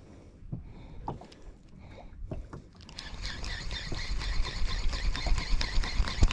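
Shimano Vanford spinning reel being cranked to work a jig, with a whir and rapid clicking. It gets louder about three seconds in as the retrieve speeds up.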